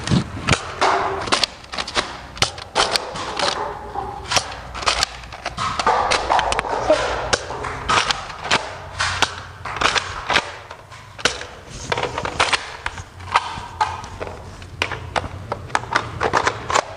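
Nerf foam-dart blasters being primed and fired: a stream of sharp, irregular clacks and pops, several a second at times.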